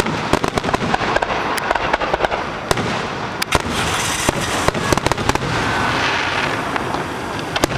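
Aerial fireworks going off in rapid succession: many sharp bangs over a continuous crackle, the crackle thickening in the middle.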